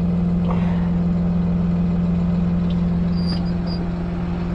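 Tractor engine running at a steady drone, heard from inside the cab. A few brief, faint high beeps come about three seconds in.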